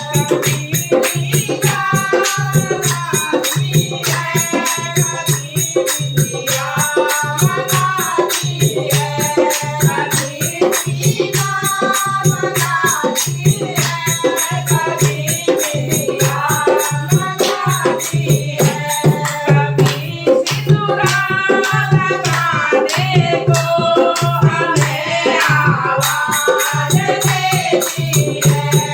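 Hindu devotional bhajan to Lakshmi, sung as a melody over a fast, steady rhythm of shaken rattles or jingles and a pulsing low beat. The highest jingle sound thins out for several seconds past the middle.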